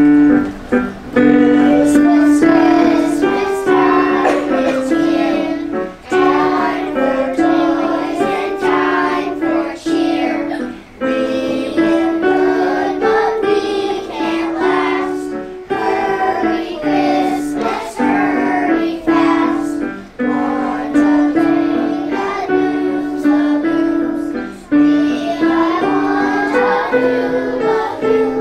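Class of young children singing a Christmas carol together, with piano accompaniment, in sustained notes that step through the melody.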